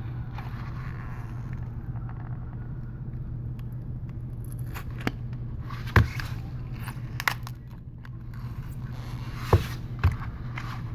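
Steady low hum of a heat gun running, with several sharp clicks and taps of prying tools on the iPad mini 3's glass as the digitizer is worked loose; the loudest click comes about six seconds in.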